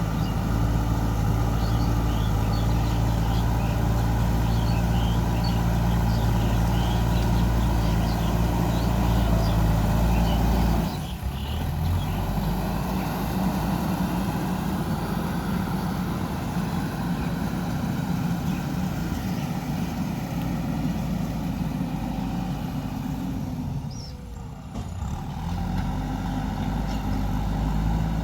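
JCB 3DX backhoe loader's diesel engine running steadily under work. The level drops suddenly about eleven seconds in and again briefly near twenty-four seconds.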